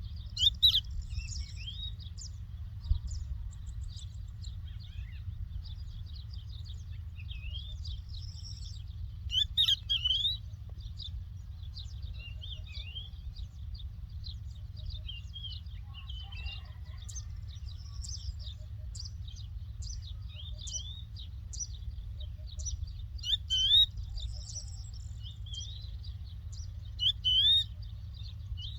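Larks singing: a continuous stream of chirps and twittering, broken now and then by louder rising whistled phrases, over a steady low rumble.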